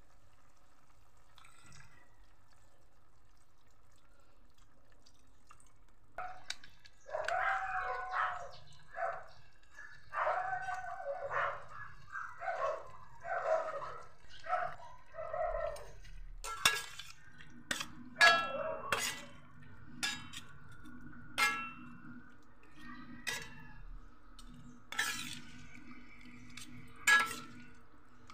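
Metal spoon clinking and scraping against a stainless steel cooking pot while pork in sauce is stirred, with sharp clinks every second or so through the second half. Before that, a run of short voice-like calls, about one a second, lasts roughly ten seconds.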